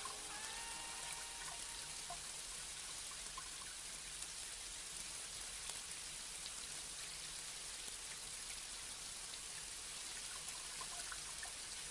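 Steady rain falling, an even hiss with scattered single drops, while the last faint tones of a song die away in the first second.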